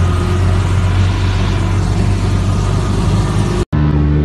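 A heavy vehicle engine runs with a steady low drone, heard from inside the cab. It cuts off suddenly near the end, and a different engine's steady running takes over.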